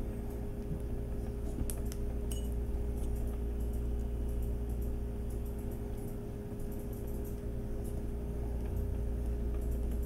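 Small hand tap turned by hand to cut threads into a diecast metal post: faint, scattered clicks and scrapes over a steady low hum.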